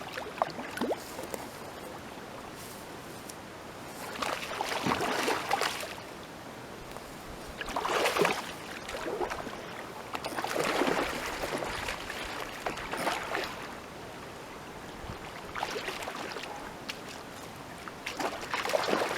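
A big hooked carp splashing and thrashing in the shallows as it is landed, in repeated bursts of splashing a couple of seconds apart.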